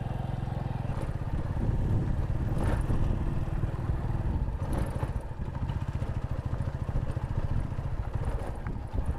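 Motorcycle engine running steadily under way, with two brief rattles, about three and five seconds in.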